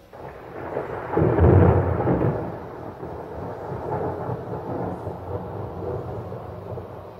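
A rolling rumble of thunder that breaks in suddenly, swells to its loudest about one and a half seconds in, then rumbles on more softly.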